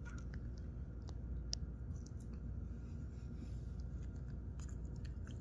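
Quiet room tone with a low steady rumble and a few faint, scattered small clicks.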